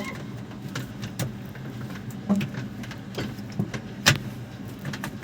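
JCB 3DX backhoe loader's diesel engine running steadily, with several sharp clanks and knocks from the working machine.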